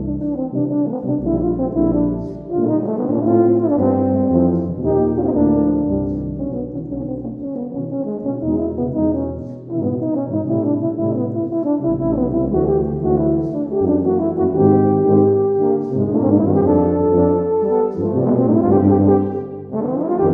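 Euphonium and tuba quartet (two euphoniums, two tubas) playing: low tuba bass notes under moving euphonium lines, with quick rising runs near the end.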